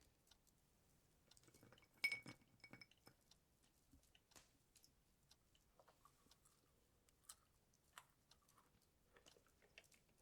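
Soft snacking sounds, small crunches and clicks of chewing, with one ringing clink of crockery about two seconds in.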